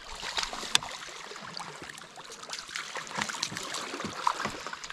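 A small hooked musky splashing and thrashing at the river's surface as it is led into a landing net: irregular splashes over the running water, with a sharp tap just under a second in.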